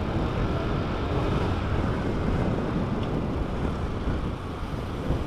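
Steady wind rush on the microphone over the running engine of a motor scooter riding along at a constant pace.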